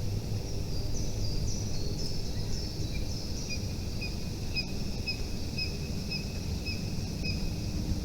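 Small bird chirping: short high chirps, varied at first, then repeated about twice a second, over a steady low rumble.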